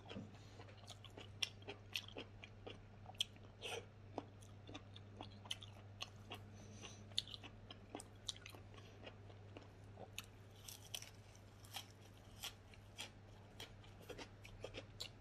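Close-up chewing and crunching of food by a person eating with his hands, many short crisp clicks scattered throughout, over a steady low hum.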